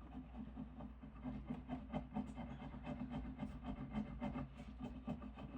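Rain ticking on the shop roof: many small, irregular taps over a steady low hum.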